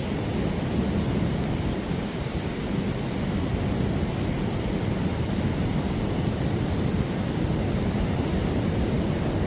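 Steady rushing coastal ambience of wind, rain and ocean surf, with a heavy low rumble and no distinct events.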